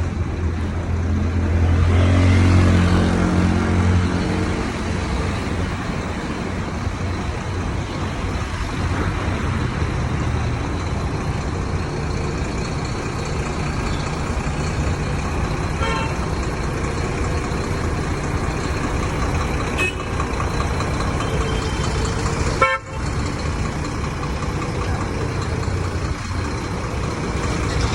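Volvo B11R bus's 11-litre six-cylinder diesel engine running with a steady low hum, swelling louder for a couple of seconds near the start. Short horn toots sound a few times later on.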